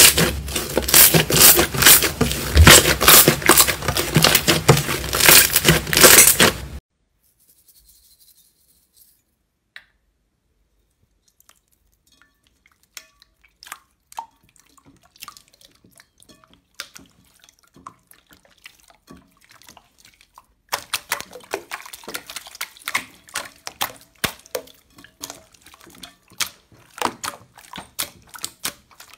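Slime being squeezed and pressed, giving a fast run of sticky crackling and popping clicks. The clicks are loud and dense at first, cut off suddenly about a quarter of the way in, come back only as sparse faint clicks, and then thicken again about two-thirds of the way through.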